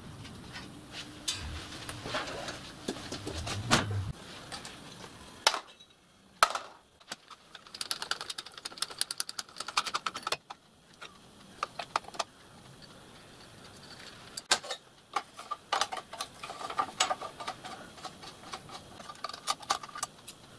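Small metal parts and hand tools clinking and rattling while a miniature steam locomotive's frame is taken apart, unscrewing the brake actuator column assembly with a spanner and screwdriver. The clicks come in bunches, with a low handling rumble over the first few seconds.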